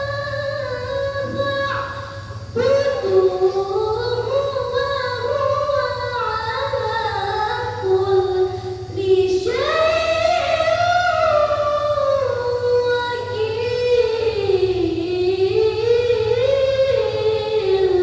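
A child's voice reciting the Qur'an in the melodic tilawah style: long, ornamented phrases with a wavering pitch, broken by short breaths about two seconds and about nine seconds in.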